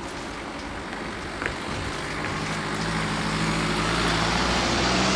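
BMW estate car driving over the level crossing toward the microphone, its engine hum and tyre noise growing steadily louder as it comes close.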